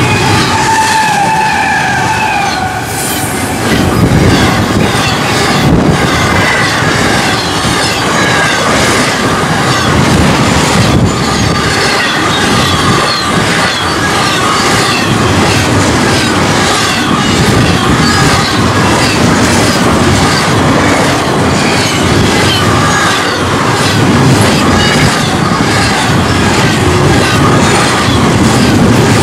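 Union Pacific intermodal freight train rolling past close by: a steady, loud rumble and clatter of steel wheels on the rails, with short high wheel squeals scattered through it.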